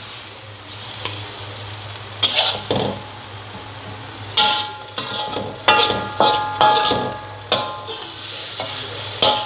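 Metal spoon scooping, scraping and knocking against a wok, the wok ringing briefly after several of the knocks, which come thick in the second half. A steady hiss from the pan runs underneath.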